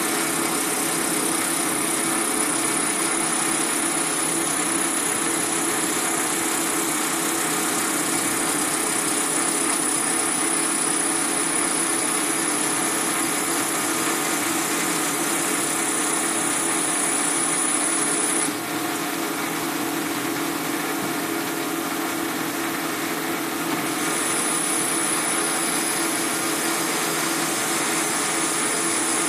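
Metal lathe running under load while its tool post cutter rough-turns a pen blank: a steady motor hum with cutting noise over it. A high whine in the sound drops out for about five seconds past the middle, then returns.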